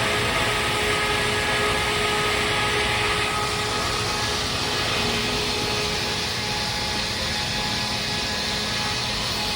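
Holtec CNC automated chainsaw machine running, with steady industrial mechanical noise and a faint steady whine that fades about three seconds in.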